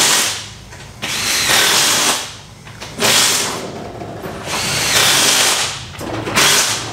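Impact wrench running in about five short bursts of a second or so each, several spinning up with a rising whine, as lug nuts are run onto a truck wheel.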